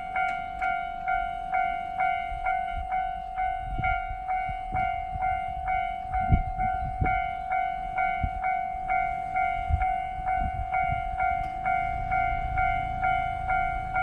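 Japanese railway level-crossing warning bell, the standard electronic type, ringing steadily at about two strokes a second. From about four seconds in, a train's low rumble and thumps of its wheels join under the bell.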